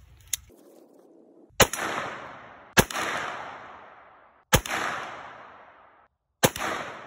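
Four single shots from a Grand Power Stribog SP10A3 10mm semi-automatic pistol firing Underwood jacketed hollow points, spaced about one to two seconds apart. Each shot is followed by a long echo that dies away. A sharp click comes about a second before the first shot.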